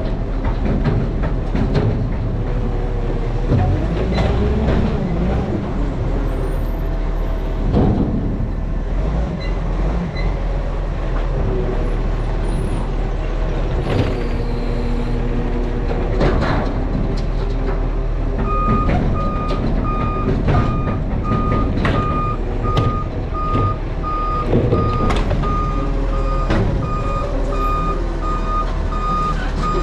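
Garbage truck engine running with scattered knocks and clanks. From about two-thirds of the way in, its reversing alarm beeps steadily at about two beeps a second.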